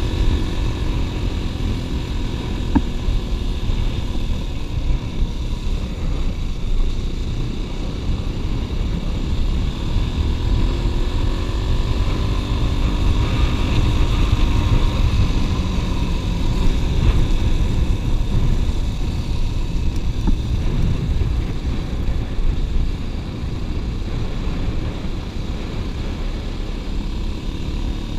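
Wind buffeting the microphone of a camera moving along a gravel track, mixed with the rumble of tyres rolling over the loose gravel.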